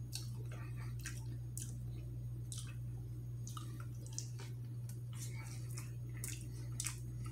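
Close-miked eating sounds of a man picking up, biting into and chewing a piece of pizza puff: scattered short wet clicks and smacks, over a steady low hum.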